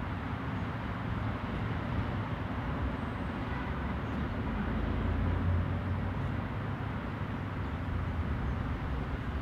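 Steady outdoor background of distant traffic, a low rumble that swells a little about five seconds in.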